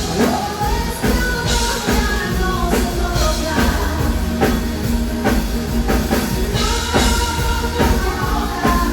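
Rock-style pop music with singing over a drum kit, cutting off abruptly at the end.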